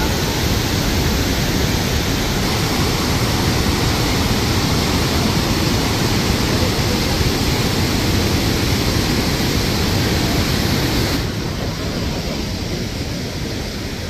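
Steady roar of rushing water from the Khone Phapheng falls on the Mekong. It softens slightly and loses some hiss about eleven seconds in.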